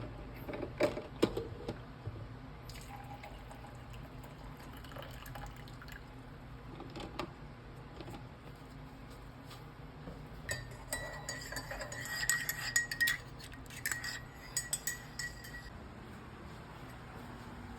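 Glassware and cutlery clinking on a kitchen counter: a few sharp knocks early, then a run of rapid, ringing clinks in the second half.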